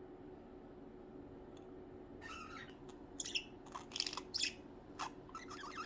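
Budgerigars chirping in short, quick bursts, starting about two seconds in, over a faint steady hum.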